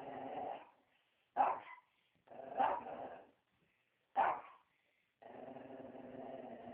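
A dog growling, then three short sharp barks about a second and a half apart, then a longer drawn-out growl from about five seconds in.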